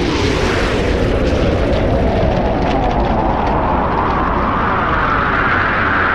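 Rocket engine roaring at launch: a loud, steady rumble with a tone that rises steadily in pitch as the rocket climbs.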